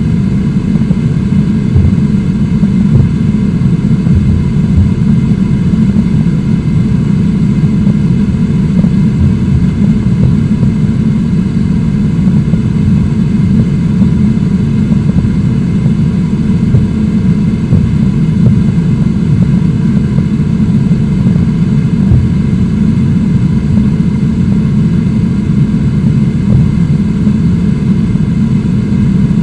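Steady, deep roar of a waterfall and whitewater rapids rushing over rocks, loud and unbroken.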